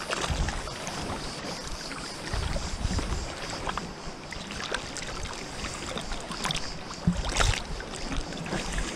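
Seawater sloshing and lapping around an action camera held at the surface by a swimmer, with crackles and low, muffled surges as small waves wash over the microphone, three of them louder: at the start, about two and a half seconds in, and about seven seconds in.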